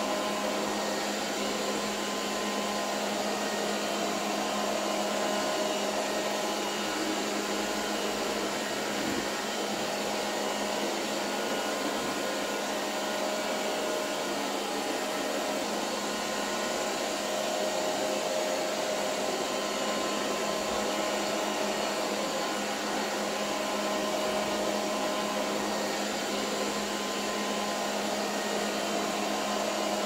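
Silvercrest SSWR A1 robot vacuum cleaner running on a hard tiled floor: a steady whirring of its suction fan and brushes with a constant low hum, and a higher tone that swells and fades every few seconds.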